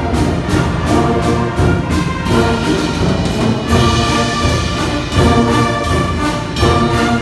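Brass band playing a tune in ensemble, with a steady beat.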